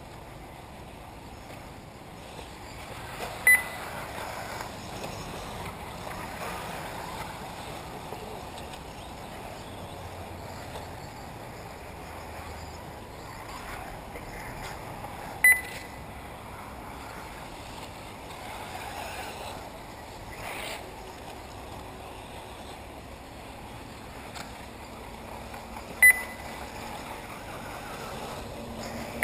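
Short, high electronic beeps, three of them about eleven seconds apart and another at the very end, over a steady rushing background at an RC car track.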